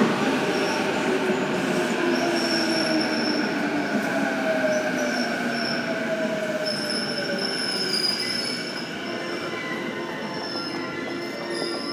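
JR East E233-series electric commuter train braking into the platform. Its motor whine falls in pitch as it slows, with thin, high wheel-and-brake squeals over the top, and the sound fades gradually as it comes to a stop.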